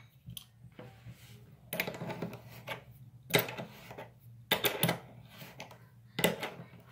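Adjustable wrench clicking and clacking on a faucet's metal cartridge nut as the new cartridge is tightened in short strokes. The clicks come in four short clusters, about a second and a half apart.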